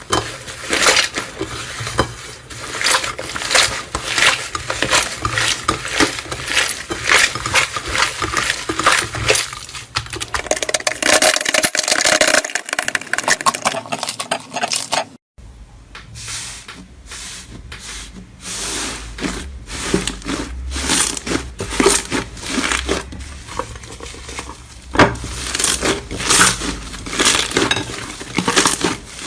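Slime being pressed and worked by hand, giving a dense run of crackling and clicking sounds. There is a brief break about halfway, after which the crackling carries on.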